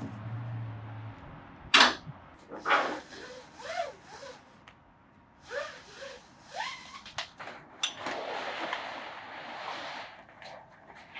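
Flatbed cargo straps being released and pulled off over the tarped load: a sharp snap about two seconds in and another a second later, then the webbing scraping and rustling against the tarp.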